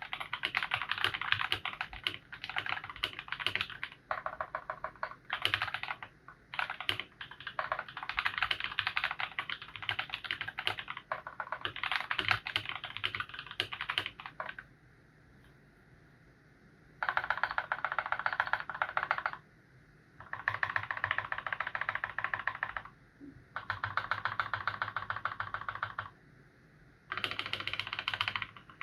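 Mechanical keyboard with Feker Holy Panda tactile switches, lubed with Krytox 205g0 and filmed, being typed on in fast, dense runs of keystrokes. The typing stops for a couple of seconds about halfway through, then comes back in several shorter runs separated by brief pauses.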